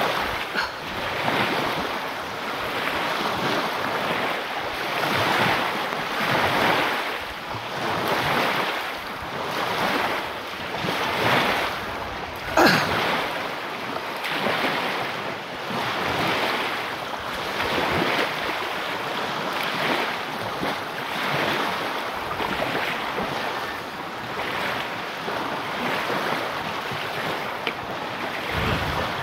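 Surf washing up on the shore, mixed with wind on the microphone. The rushing noise rises and falls every second or so, and a single sharp knock comes about halfway through.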